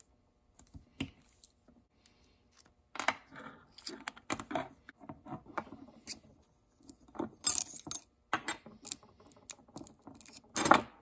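Small metal parts of a Shimano 600 Tricolor rear derailleur clicking and clinking as it is taken apart by hand: an Allen key working a pulley bolt, then the cage plates and jockey wheel coming apart. The clicks are irregular, with louder handling noises about two-thirds of the way through and near the end.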